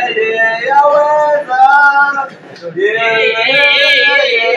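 A man singing a Swahili gospel song with no instruments, in long held notes. The singing breaks briefly about two and a half seconds in, then climbs to a higher line with a strong wavering vibrato near the end.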